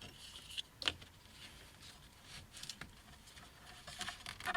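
Scattered light clicks and taps of small metal parts being handled, with one sharper click about a second in and a cluster of taps near the end.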